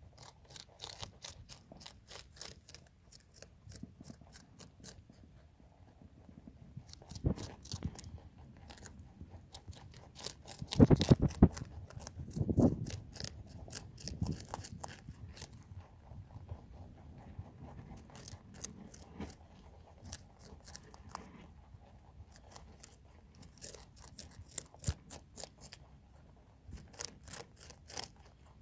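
Several rabbits chewing red cabbage leaves, close up: rapid trains of crisp crunches that come in bursts with short pauses. A few louder knocks and thumps near the middle.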